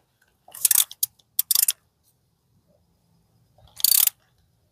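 Socket ratchet clicking in short bursts as it drives in a 12 mm bolt, three quick bursts in the first two seconds and another near the end.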